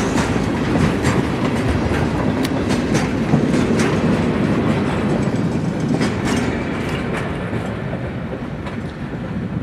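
Alexander Railroad freight train rolling past close by, its steel wheels clicking over the rail joints in a steady rumble that begins to fade near the end.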